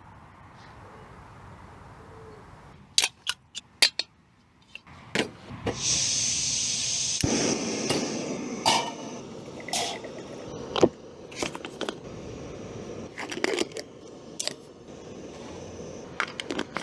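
Screw-on gas canister camping stove being lit: a few sharp clicks, then gas hissing from about six seconds in, catching about a second later and burning with a steady rush. A metal pot and utensils clink and knock around it.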